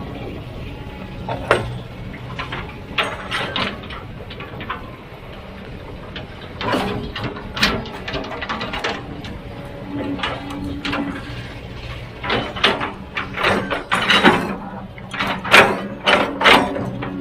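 A heavy earthmoving machine's diesel engine running steadily, with repeated irregular metallic clanks and knocks of the bucket working rock.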